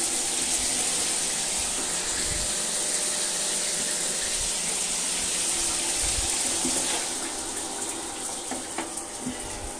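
Newly fitted 8.5 kW electric shower running, water spraying steadily from the shower head, getting a little quieter about seven seconds in. Behind the rush of water, the unit's heating element hums faintly, boiling inside a little like a kettle as the water comes through hot.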